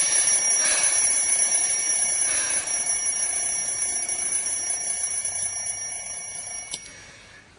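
Alarm clock ringing steadily, growing fainter, then stopping shortly before the end.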